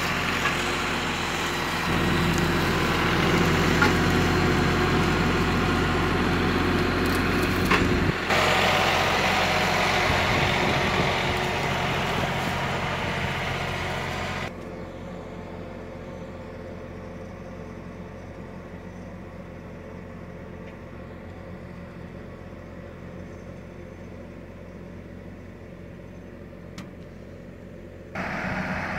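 Kioti NX 6010 tractor's diesel engine running steadily. It grows louder about two seconds in, drops suddenly to a quieter, duller run about halfway through, and comes back up loud near the end.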